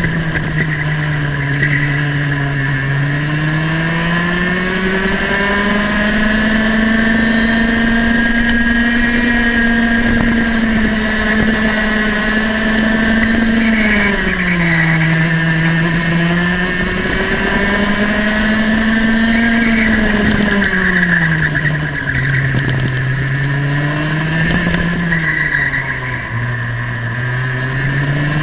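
Racing kart's high-revving single-cylinder two-stroke engine at full throttle on track, heard from on board. Its pitch holds high on the straights and drops several times as the driver brakes for corners, then climbs again on acceleration.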